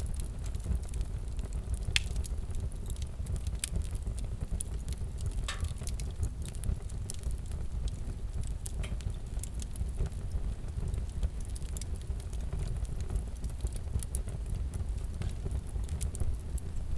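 Crackling fireplace fire: a steady low rumble of burning with irregular snaps and pops.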